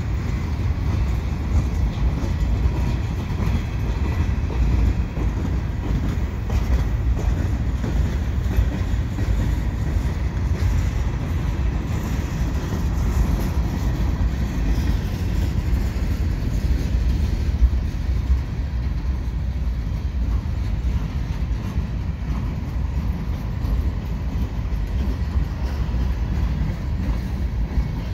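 Covered hopper cars of a slow-moving freight train rolling past: a steady low rumble of steel wheels running on the rails.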